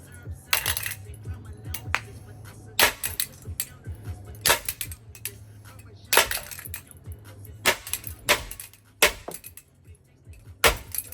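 A Hunter Augusta ceiling fan being smashed apart: about eight heavy blows at uneven intervals, with breaking and cracking. A low steady hum runs underneath until near the end.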